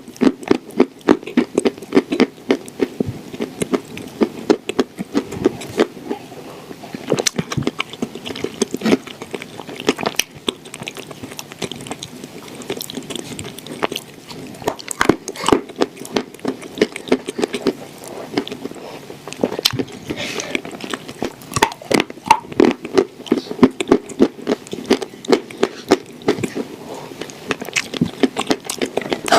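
Crunching and chewing of dry clay pressed into shortbread-cookie shapes: dense, rapid crisp crackles as it is bitten and ground between the teeth, easing off for a few seconds now and then.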